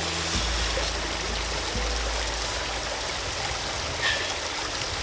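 Stream water flowing steadily, an even rushing sound.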